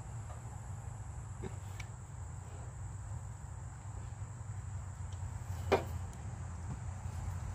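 Faint clicks and one sharper click about six seconds in, from hands tugging at a stuck spark plug wire boot in the engine bay, over a low steady rumble.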